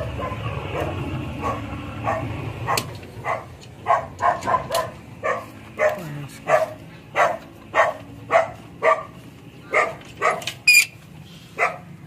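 An animal giving a run of short, repeated calls, nearly two a second, starting about three seconds in.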